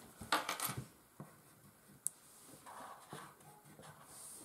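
Crayons rubbing across paper on a tabletop in short scratchy strokes, with one light tap about two seconds in.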